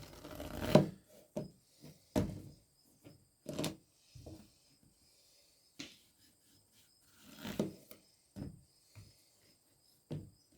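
Knife work on a cutting board: irregular knocks, taps and scrapes as a vegetable is cut and its seeds are cut away, with the loudest knock a little under a second in.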